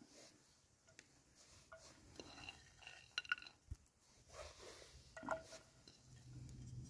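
Faint, scattered light clinks and taps, the clearest two with a brief ringing tone, a little over 3 s in and again about 5 s in.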